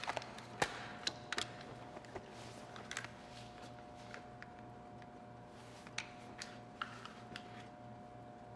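Sparse, irregular light clicks and taps over a faint steady hum.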